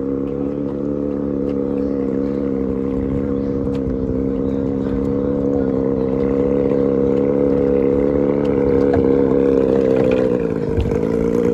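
Small river boat's engine (the 'tuhasu68' named for the boat) running steadily at speed under way, with a brief dip and recovery in pitch near the end.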